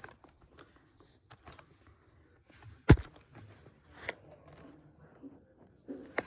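Plush toys and toy props being handled and moved about on a surface, with scattered soft rustles and clicks and one sharp knock about three seconds in.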